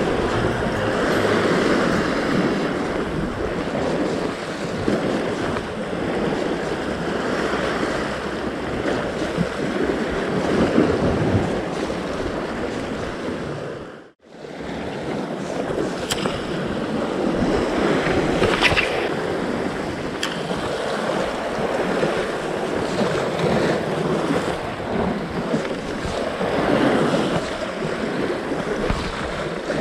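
Sea waves washing and breaking against shore rocks, with wind buffeting the microphone. The sound drops out for a moment about halfway through, then returns.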